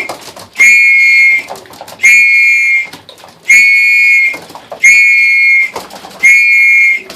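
A hand whistle blown in short, steady, even blasts, about one every one and a half seconds, five of them in a row, calling young racing pigeons in to the loft.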